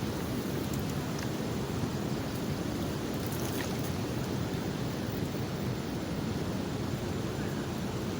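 Steady, even rush of fast-flowing floodwater on a swollen river, a continuous noise without distinct events.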